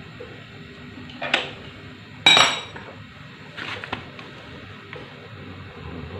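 Metal pieces clinking together as they are handled during engine overhaul work: a sharp clink about a second in, a loud ringing clank a second later, then two softer clinks near the four-second mark.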